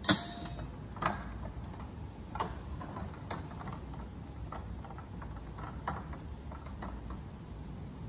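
Metal engine parts being handled as the stator cover comes off a Suzuki GSX-R 600: one sharp clack at the start, then scattered lighter clicks and knocks, over a steady low hum.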